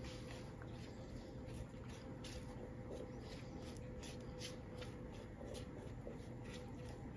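Brownie batter being scraped out of a mixing bowl into a metal baking pan with a spatula: faint, irregular scrapes and soft squishes over a low steady hum.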